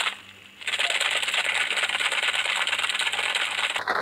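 Ice cubes rattling inside a plastic shaker bottle of chocolate milkshake, shaken hard by hand: a dense, fast rattle that pauses briefly near the start, resumes, and stops just before the end.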